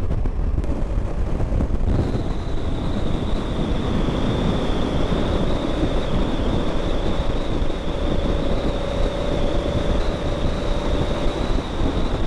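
Wind rushing over the microphone with a motorcycle's engine and road noise while riding at highway speed; a thin, steady high whine joins about two seconds in.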